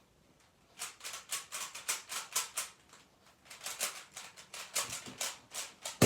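Rubik's cube layers being turned quickly by hand, a run of plastic clicks about five a second, with a short pause about three seconds in. One sharp, louder knock comes at the very end.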